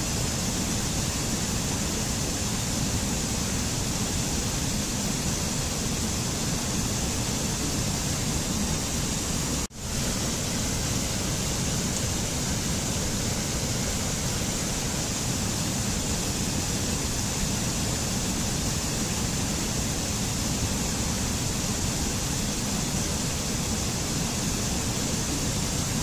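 Steady rush of a mountain stream cascading over rocks in a small waterfall. The sound drops out for a split second about ten seconds in, then returns.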